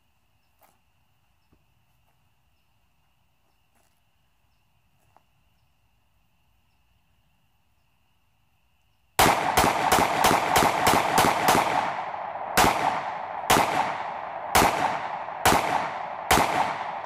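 Jimenez Arms JA 9mm semi-automatic pistol firing. After near silence, a quick string of about ten shots starts about nine seconds in, followed by about five more shots roughly a second apart.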